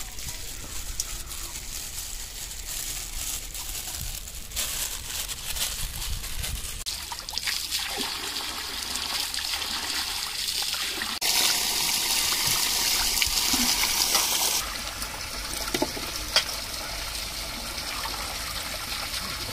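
Water splashing and trickling as raw chicken pieces are washed by hand in a steel bowl beside water running from a pipe, louder for a few seconds in the middle.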